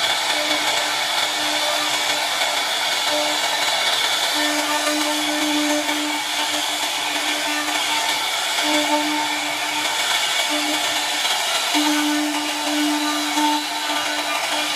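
CNC router spindle running with a large profile cutter milling wood: a steady high-pitched machine whine over continuous cutting noise, with a lower hum that comes and goes every second or two.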